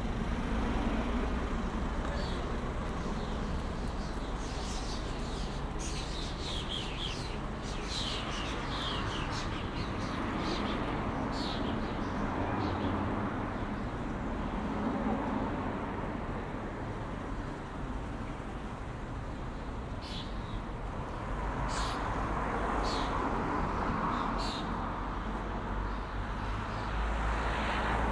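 Town street ambience: road traffic running past with a steady low rumble, and one car passing louder near the end. Birds chirp over it in runs of short, falling calls through the first half and again about two-thirds of the way in.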